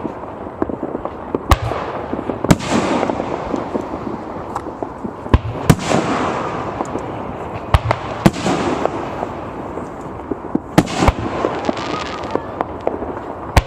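Fireworks display: aerial shells bursting in irregular sharp bangs every second or two, each trailing off in an echoing rumble that keeps up between the bangs.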